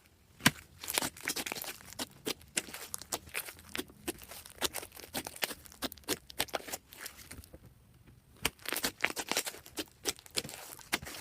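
Slime being mixed and kneaded by hand: a dense, irregular run of sticky crackling pops and clicks, with a short pause about two-thirds of the way through.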